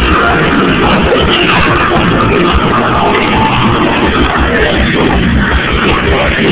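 Loud music with a dense, rock-like sound, running without a break.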